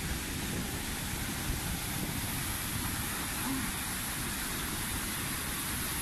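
The Bad Gastein waterfall crashing down at close range: a steady, even rush of falling water.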